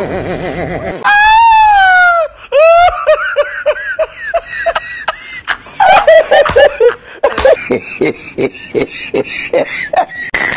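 A person's voice: a loud drawn-out wail lasting about a second, then a run of short laughing and chattering sounds in a quick rhythm.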